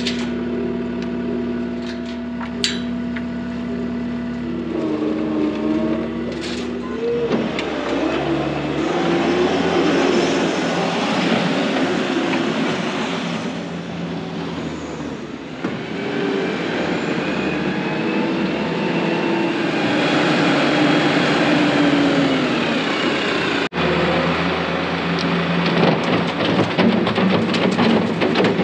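Tractor diesel engine running under way, its pitch rising and falling as the revs change.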